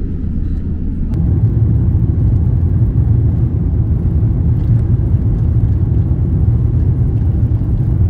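Jet airliner heard from inside the cabin on its takeoff roll: a steady low rumble of the engines at takeoff thrust and the wheels on the runway, growing louder about a second in and holding.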